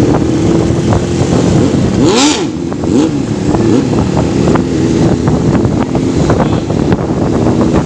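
A freshly rebuilt Yamaha FZ750's inline-four engine running on a road ride. Its note swings up and down a few times about two seconds in, with a brief rush of noise.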